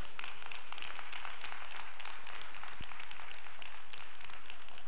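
Congregation applauding: many hands clapping in a steady, even patter.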